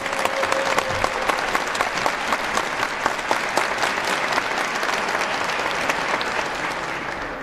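Parliamentarians in the chamber applauding: many hands clapping steadily, fading out near the end.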